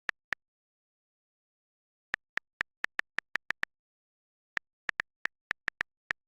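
Short, sharp clicks of the same pitch on dead silence: two at the start, then after a pause a quick run of about nine, then another run of about eight.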